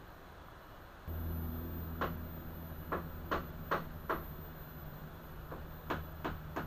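A small electric motor hums, switched on about a second in and cut off abruptly near the end, with about eight sharp knocks at irregular intervals over it.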